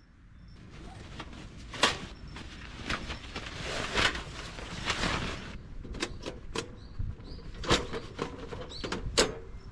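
Rustling and sharp knocks from handling kindling and firewood at a wood-burning fire grill. The rustling swells and stops about five seconds in, followed by a quick run of sharp clicks and knocks.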